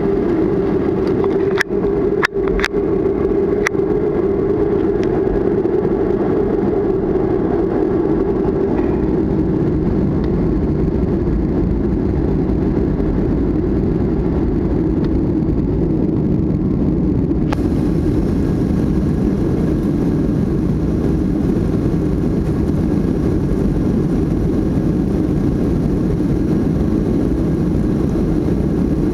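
Steady loud rumble of a Boeing 737-500's CFM56 jet engines heard from inside the passenger cabin, with a few sharp clicks about two seconds in.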